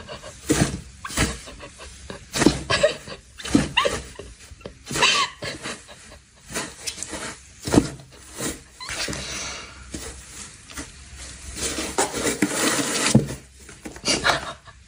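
Irregular knocks and thumps on a cardboard box as a cat scrambles inside it and pops up through the round holes, with a few short animal cries.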